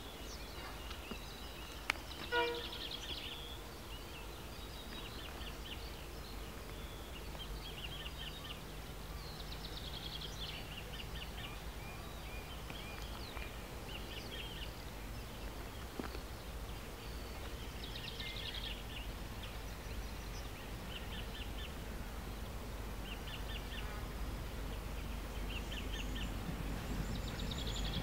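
Birds chirping in short, repeated high phrases over a low outdoor rumble, with a sharp click about two seconds in. Over the last few seconds the low rumble slowly grows louder as a diesel-hauled freight train approaches in the distance.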